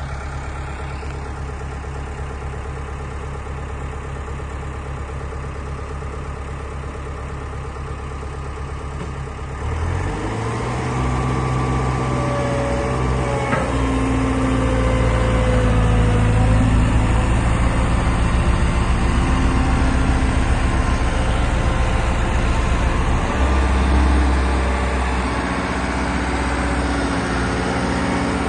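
Road roller's diesel engine idling steadily, then about ten seconds in it picks up and runs louder as the roller is set going, with a few brief whining tones over it.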